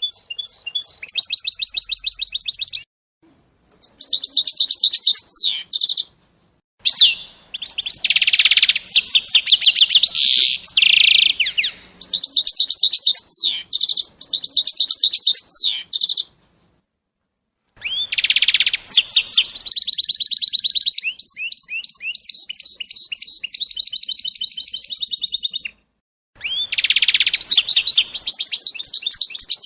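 A small songbird singing long phrases of rapid, high-pitched trills and chirps, with short pauses between phrases.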